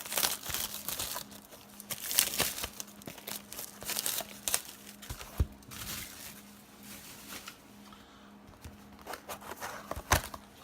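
Plastic wrapping crinkling and tearing as a sealed trading card hobby box is unwrapped and opened by hand, in irregular crackles that ease off for a few seconds midway.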